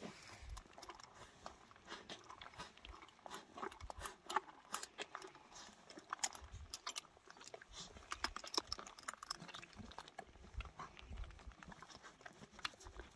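A horse chewing bread close up: irregular crunching and crackling with a few soft low thuds from the jaws, at a fairly low level.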